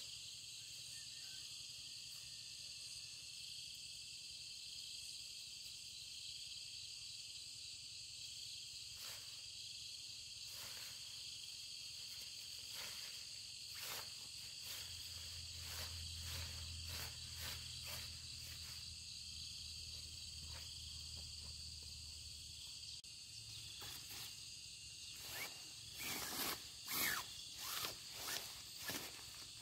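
A steady, high insect chorus, with rustling and clicking from a nylon tent and its poles being handled; the clicks and rustles come thicker and louder over the last few seconds.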